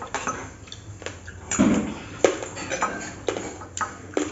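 Spoons clinking and scraping against small stainless steel bowls: scattered short clicks, some with a brief ring, about every half second.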